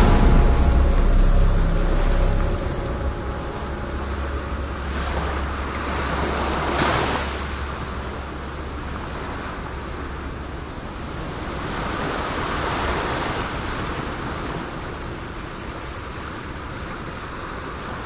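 Sea surf breaking and washing over a boulder shore: a steady rush that swells about seven seconds in and again around twelve seconds. A deep low hum underneath fades out around eight seconds in.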